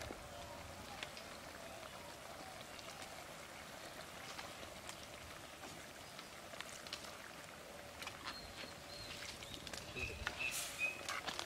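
Curry simmering in a clay pot over a wood fire: a faint, even patter of bubbling and small crackles, with stirring from a wooden spatula. A few short high chirps come near the end.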